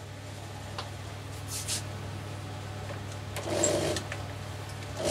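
Steady low hum with a few faint clicks, and a brief rustle and knock about three and a half seconds in as a hand takes hold of the corded electric drill that drives the homemade belt grinder.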